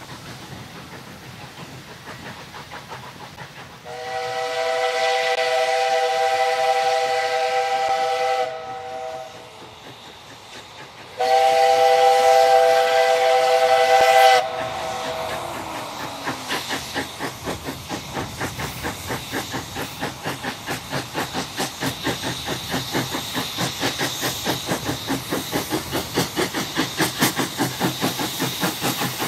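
Steam whistle of the DSB class F tank locomotive 654 F sounding twice: a long blast of about four seconds, then a shorter one of about three seconds, as a warning on the approach to a level crossing. The whistles are followed by the locomotive's exhaust chuffing at about two beats a second, growing louder as the engine draws near.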